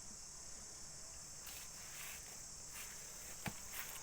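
Steady high-pitched insect chirring, with a single sharp knock about three and a half seconds in.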